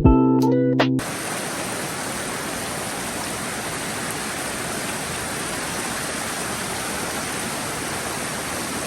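Piano music cuts off about a second in, giving way to a steady rush of flowing water, close and fairly loud.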